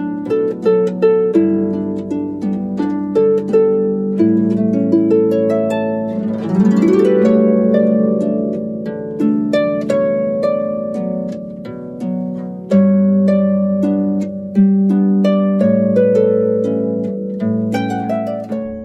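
Background music of plucked harp notes over held low tones, with a rising sweep about six seconds in.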